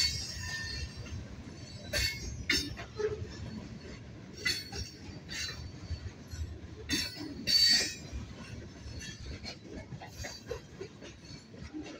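Freight train's covered hopper and tank cars rolling past close by, with a steady rumble of wheels on rail. Sharp metallic clanks and brief high wheel squeals come every second or two; the loudest is a little past halfway.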